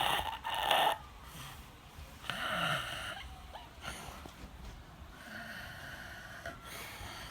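An elderly man snoring in his sleep: a series of snores of uneven length, the loudest in the first second and about two and a half seconds in, then weaker ones.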